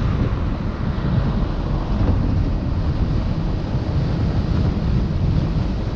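Wind buffeting a GoPro Hero 6's microphone while travelling along a road, a steady, heavy low rumble with no clear engine note.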